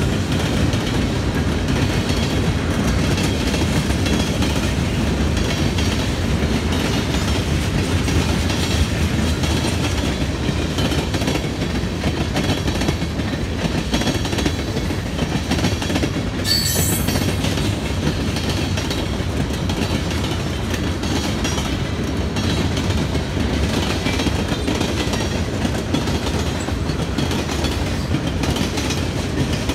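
Freight train cars rolling past close by: a steady noise of steel wheels on the rails. A brief high-pitched squeal comes about halfway through.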